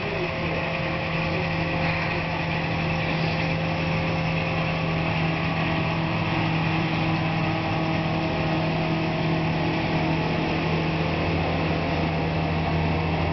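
Heavy diesel engines of snow-removal machinery, a dump truck and a loader, running in a steady low drone, heard through a glass door.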